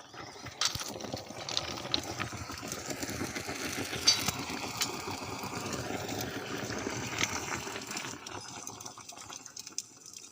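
Electric arc welding: the arc crackles and buzzes steadily, with a few sharp pops. It starts about half a second in and dies away near the end.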